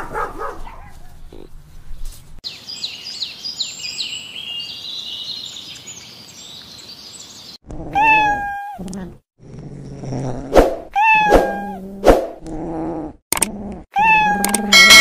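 A domestic cat meowing several times in the second half, each meow high and falling in pitch, with lower cat sounds between the meows. Before the meows comes a stretch of quieter high chirping.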